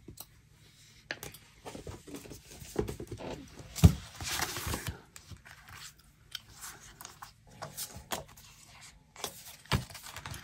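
Sheets of scrapbook paper and photo prints being handled and slid across a cutting mat, rustling with scattered taps. The loudest moment is a knock about four seconds in, followed by a short burst of rustling. A stomach growls among the handling noise.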